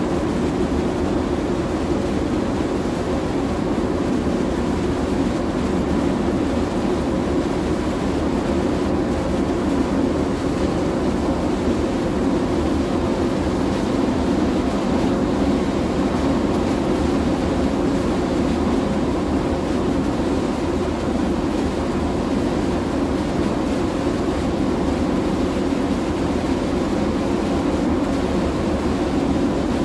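Steady, unbroken drone of shipboard machinery on a bulk carrier, mostly a low rumble with faint steady hum tones above it.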